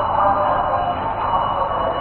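Air horn (typhon) of an 81-717.5A metro train sounding a steady blast made of several tones together.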